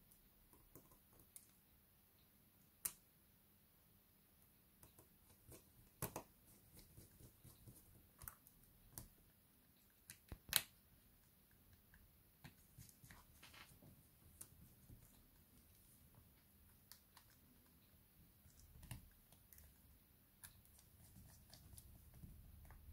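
Small, sharp, irregular clicks and taps of tools and plastic parts while a Samsung Galaxy Tab A tablet is being worked on, with a few louder clicks standing out in the first half.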